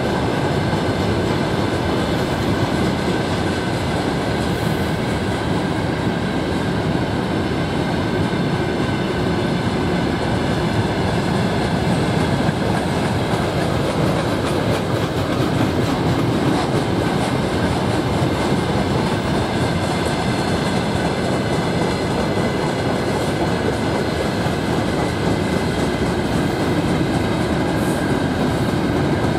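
Freight train of covered hopper wagons rolling past at close range: a steady rumble of steel wheels on the rails, with a few faint high steady tones above it.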